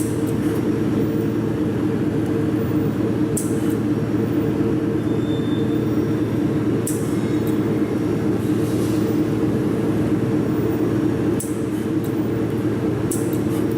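Steady mechanical hum of running machinery, with a few brief sharp high-pitched ticks at irregular intervals.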